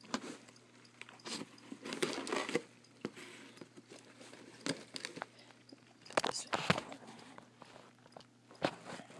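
Paper wrapping on a shipping box being torn and crumpled by hand, in irregular short bursts of ripping and crackling.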